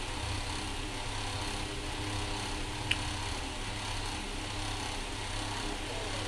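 Steady low hum and hiss, with one light clink of a spoon against a steel kadai about three seconds in.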